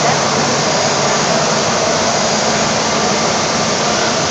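Mikron HPM 1350U 5-axis machining centre running, a steady whirring hiss with no knocks or breaks.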